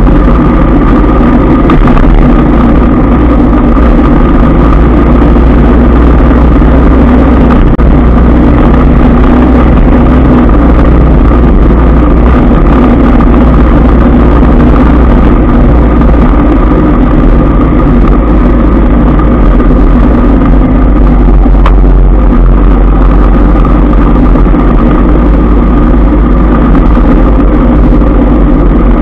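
Loud, steady traffic noise from a moving motorbike: engines of the bike and the scooters around it running, with heavy low wind rumble on the microphone and a steady hum over it.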